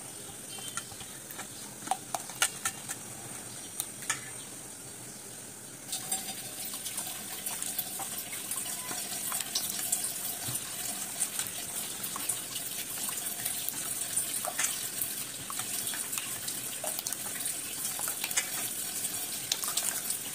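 A metal spoon stirring and lifting thin, runny batter in a stainless steel bowl. It starts with a few scattered taps of the spoon on the bowl, then about six seconds in turns into a continuous, louder wet sloshing with small clicks.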